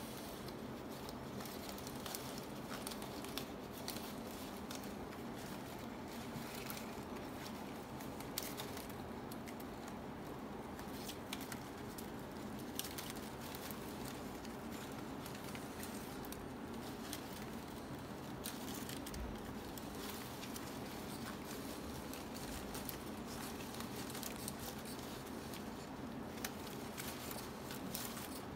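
Strips of palm leaf rustling and crackling as they are woven by hand, with small scattered clicks over a steady low hum.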